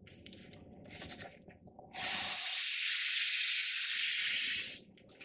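Faint rustling, then about two seconds in a loud, steady hiss that lasts nearly three seconds and stops abruptly.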